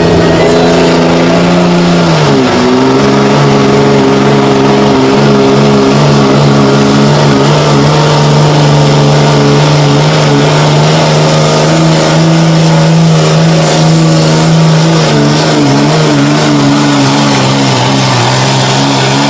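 Dodge Ram pickup's engine running hard at high, steady revs while pulling a weight-transfer sled. The pitch dips briefly about two seconds in, then holds steady.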